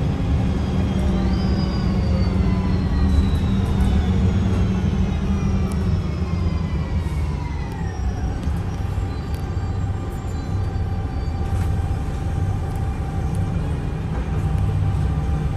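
Mercedes-Benz O405NH city bus running with a heavy engine rumble and a loud whine from its Voith automatic gearbox. The whine rises briefly about a second in, then falls steadily in pitch for several seconds as the drivetrain slows, and settles into a steady tone.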